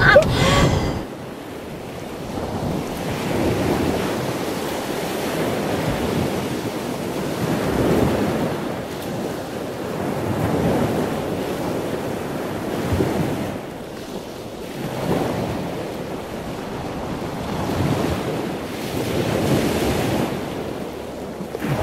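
Ocean surf breaking on a beach, the wash swelling and fading every few seconds.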